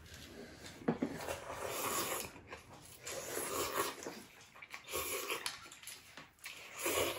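Ramen noodles and broth being slurped, a run of several wet, drawn-out slurps in a row.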